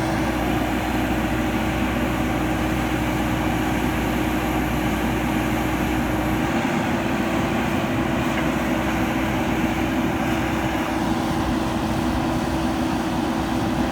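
JCB 3DX backhoe loader's diesel engine running steadily under work, with a constant hum; its deepest rumble drops away about halfway through.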